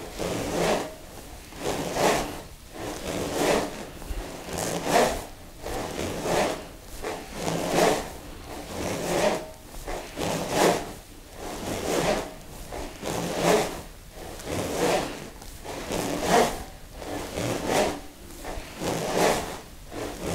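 Smovey swing rings, hollow plastic rings with steel balls inside, swung around the body. The balls roll through the tubes in a rushing swish that rises and falls about once every one and a half seconds.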